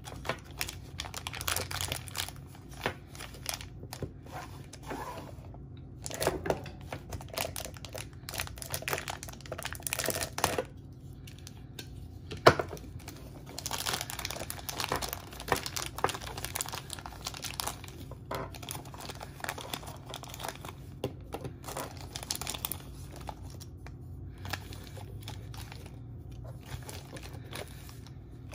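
Thin clear plastic packaging bags being crinkled and torn open by hand, in irregular crackling bursts with short pauses, and one sharp snap about halfway through.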